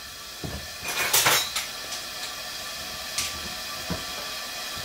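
Kitchenware clanking: a few knocks and clinks, the loudest cluster about a second in and single knocks near three and four seconds.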